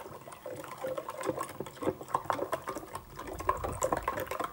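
Wooden spoon stirring brown sugar into herbal decoction in a glass jar: rapid, irregular clicks and scrapes of the spoon against the glass as the sugar is mixed into the liquid.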